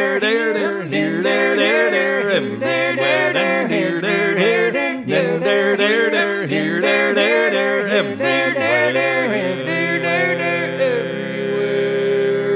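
Music with a voice singing a melody that bends up and down, settling into long held notes near the end.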